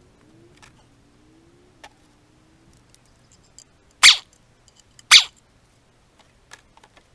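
Two short, loud noise bursts about a second apart, among faint scattered clicks.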